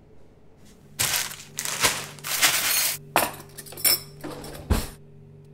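Metal cutlery clattering and clinking in a kitchen drawer as a hand rummages through the silverware in its plastic tray. There are bursts of rattling and then several sharp clinks, over a low steady hum that comes in about a second in.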